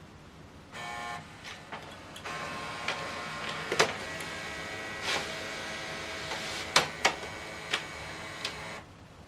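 HP OfficeJet Pro 9120e's automatic document feeder and scanner motor running, with a steady whine and a series of sharp clicks and clunks as the pages are drawn through for a two-sided scan. It starts about a second in and stops shortly before the end.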